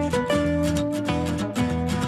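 Background instrumental music of quickly plucked, guitar-like notes.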